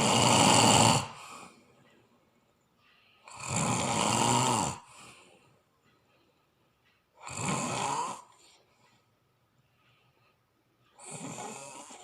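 A sleeper snoring: four long snores about every four seconds, each a little quieter than the one before.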